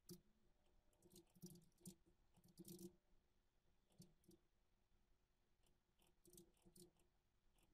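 Near silence with faint computer keyboard typing: short clusters of light key clicks, with pauses between them.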